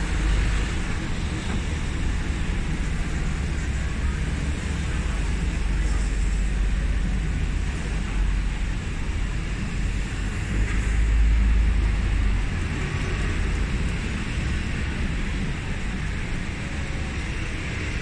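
City road traffic at a busy junction: a steady low rumble of engines and tyres from passing buses, a lorry and cars, swelling a few times as heavier vehicles go by, loudest a little past the middle.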